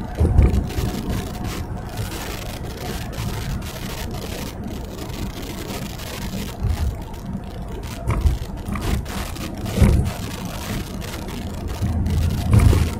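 Car driving, heard from inside the cabin: steady low road and engine rumble, with a few low thumps, one just after the start, one about ten seconds in and one near the end.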